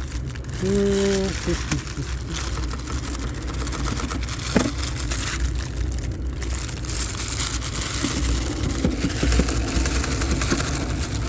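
Packaging being handled as the inflator is lifted out of its styrofoam packing: scattered scrapes, crackles and one sharp knock over a steady low rumble.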